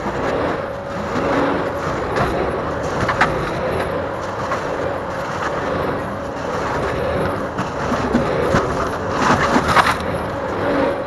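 Compact track loader running steadily, a continuous engine and hydraulic drone with a constant whine and occasional knocks.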